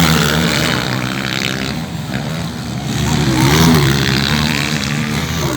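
Motocross dirt bike engines running and revving, the pitch rising and falling about halfway through.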